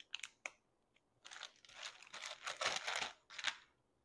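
Plastic film on a packaged meat tray crinkling and tearing as it is peeled open by hand: a few light clicks at first, then about two seconds of dense crackling.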